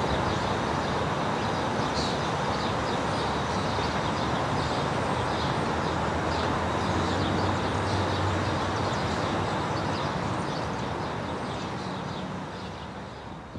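Steady rushing outdoor ambience with faint, repeated high chirps, fading out near the end.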